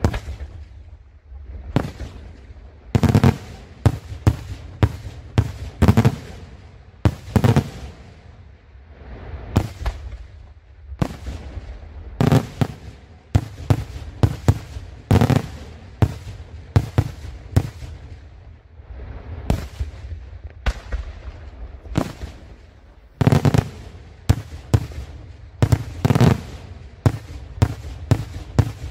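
Daytime fireworks display: aerial shells bursting overhead in a dense, irregular series of sharp bangs, with louder, deeper booms every few seconds.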